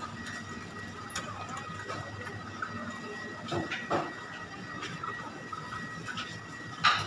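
Supermarket background: a steady hum with a thin high tone running through it, broken by a few short knocks and clatters.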